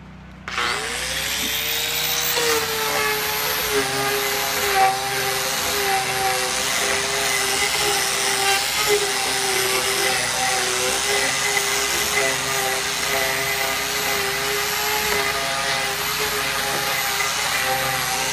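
Angle grinder fitted with an Arbortech TurboPlane carving disc starts about half a second in, its whine rising as it spins up, then runs steadily with slight wavers as it planes rough-sawn timber into a wavy, hand-scraped texture.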